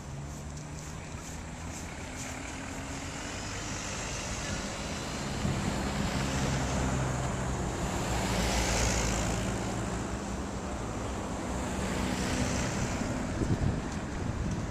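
Street traffic on a snowy road: a car's engine and tyre noise swell to a peak about nine seconds in as it drives past, with a second, weaker pass a few seconds later over a steady low traffic hum. A few sharp knocks near the end.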